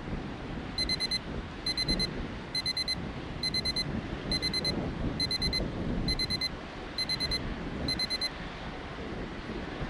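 Electronic timer alarm beeping nine times, each time a quick burst of about four short high beeps, roughly one burst a second: the count that marks nine elapsed minutes.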